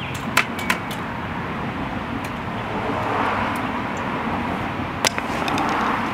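Road traffic going by: a steady rushing noise that swells twice, with a few sharp clicks over it.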